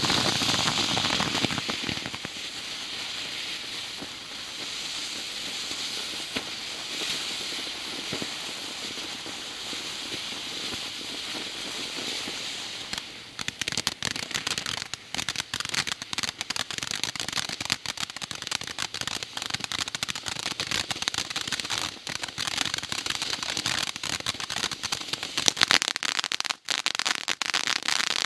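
M&M ground fountain firework burning with a steady spraying hiss, which turns about halfway through into dense, loud crackling.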